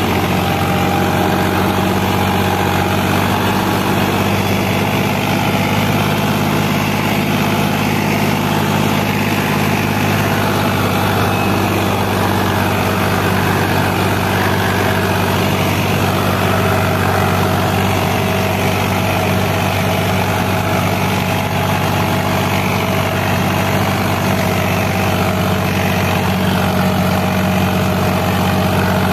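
Indo Farm tractor's diesel engine running steadily at an even pitch while pulling a disc harrow through the soil.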